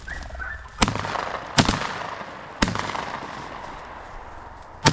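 Four shotgun shots from hunters firing at flushed birds, spaced unevenly about a second apart, with the last near the end, each trailing off in an echo.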